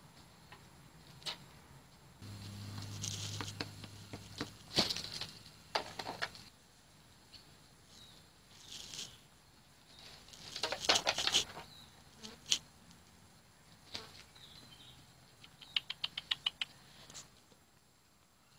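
Hens and an Australian brush-turkey pecking grain and scratching in dry leaf litter: scattered sharp clicks, rustles and scrapes, with a quick run of about eight pecks near the end. About two seconds in, a low hum lasts for about two seconds.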